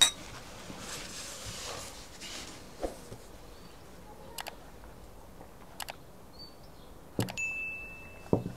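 Glasses clink together in a toast at the very start. A quiet stretch follows, broken by three sharp mouse-click sound effects from a like/subscribe/bell animation. Near the end, a short, steady high-pitched notification bell ding rings out.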